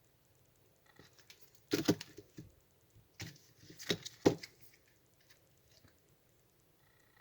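Handling noise of silver bullion coins and their packaging: a few sharp clicks and rustles, loudest around two and four seconds in.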